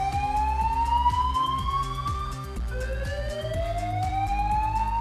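Alarm siren tone sweeping slowly upward in pitch, each rise taking about four seconds, then dropping back low and starting over a little past halfway, over music with a steady beat and bass.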